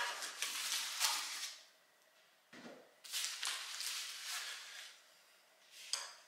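Cardboard shipping box being handled and pulled open, with packing tape and flaps rustling and scraping in several bursts. A short sharp click comes near the end.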